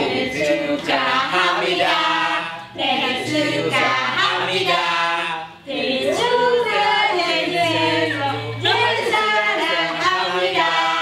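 A group of voices, mostly female, singing a song together in phrases, with short breaks about a quarter and about halfway through.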